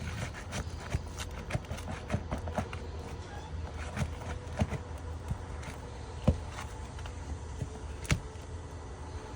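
Hand tools working at asphalt roof shingles, lifting and prying them: irregular light clicks and taps, with two sharper knocks about six and eight seconds in, over a steady low rumble.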